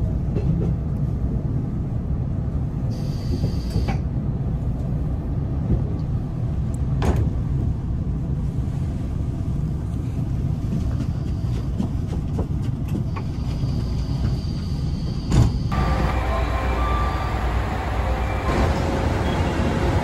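Steady low rumble of a Series 381 limited express train running, heard from inside the car as it rolls into a station, with a few sharp clicks from the track. About four seconds before the end it switches to the sound of the train at the platform.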